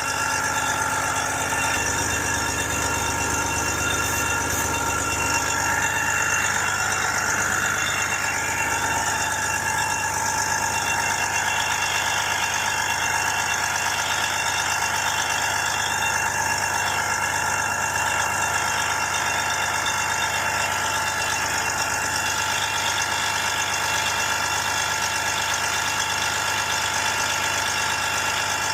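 Peterbilt 389 semi truck's diesel engine idling steadily, with steady whining tones over it, while the AC system runs at full blast during a refrigerant recharge.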